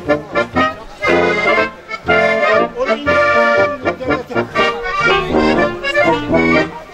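Small Bavarian folk band playing traditional music: accordion with trumpet, tenor horn and tuba.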